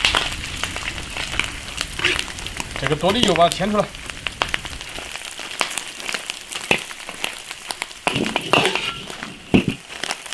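Pork belly slices sizzling and spattering in a hot iron wok, with a metal ladle clinking and scraping as it stirs them; the fat is being fried out over high heat.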